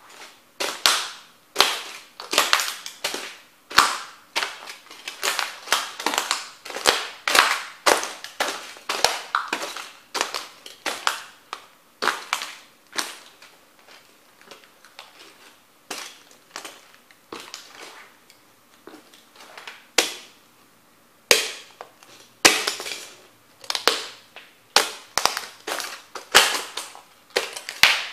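Sneakers stomping on and crushing the broken pieces of model train houses: a rapid series of sharp cracks and crunches. The stomping thins to a few scattered cracks for several seconds in the middle, then picks up again.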